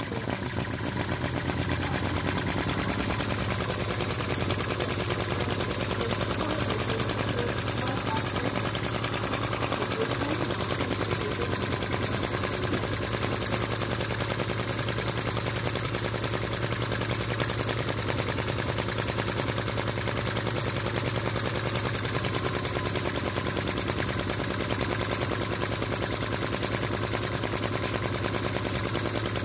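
Model V-twin vacuum (flame-licker) engine running steadily, its intake valves sucking the flames in with a fast, even popping. The popping comes from the valve-spring tension being set just right.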